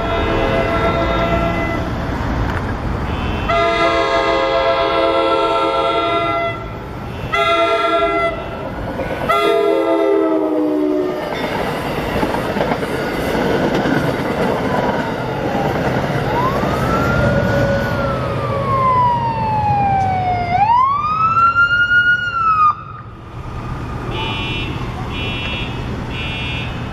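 Train horn sounding the grade-crossing pattern, long, long, short, long, its pitch dropping on the last blast as the train passes. Then a siren sweeps up and down in a wail and cuts off suddenly, followed by short repeated tones near the end.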